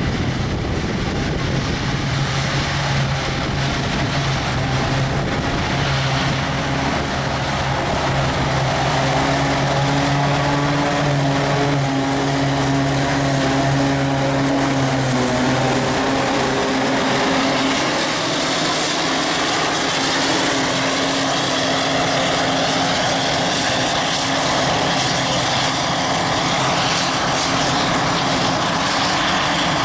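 Claas Jaguar forage harvester chopping grass, its large diesel engine and chopper drum running with a steady heavy drone, alongside a tractor pulling the silage trailer. The hum in the drone changes pitch about halfway through as the harvester passes close.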